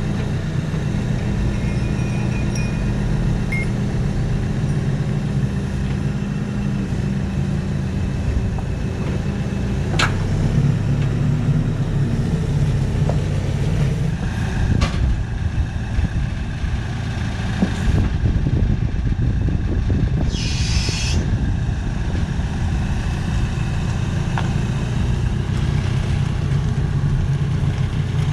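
Forklift diesel engine running and working close by, its note shifting partway through. A single sharp knock comes about ten seconds in, and a short burst of hissing air about twenty seconds in.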